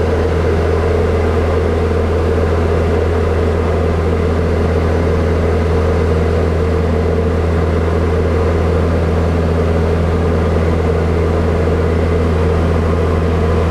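Diamond DA40's piston engine and propeller droning steadily in cruise, heard inside the cabin as a loud, unchanging low hum.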